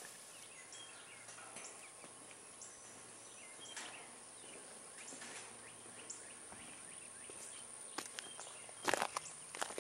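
Quiet countryside ambience: scattered short bird chirps over a steady high hiss, with a few knocks near the end.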